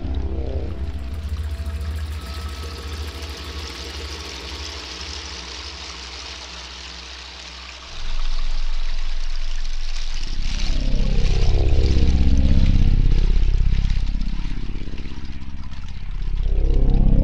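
Dark ambient drone music made with a Korg Poly-800 synthesizer and samples. A noisy wash slowly thins out over the first several seconds. About eight seconds in, a low drone comes in louder, and from about ten seconds, sweeping tones glide up and down across each other.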